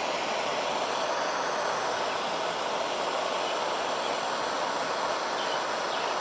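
Handheld gas torch burning with a steady hiss, its flame held against a wooden board coated with fire-retardant paint.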